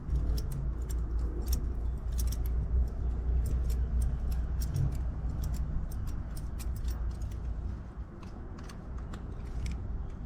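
Many light, irregular clicks and clinks of metal brake pads, pad pins and tools being worked loose from a motorcycle brake caliper, over a steady low rumble.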